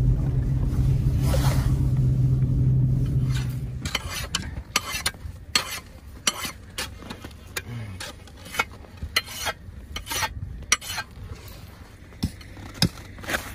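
Car engine running, heard from inside the cabin, for about four seconds; then footsteps crunching in snow at a walking pace, about two a second.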